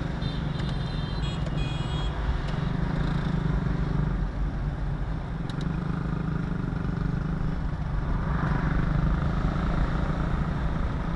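Steady drone of a moving car heard from inside the cabin: engine and tyre noise, with a few short high beeps in the first two seconds.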